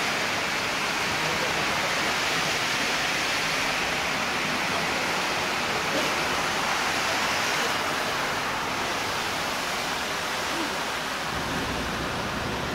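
Steady hiss of heavy rain and floodwater running across a street. A low rumble joins near the end.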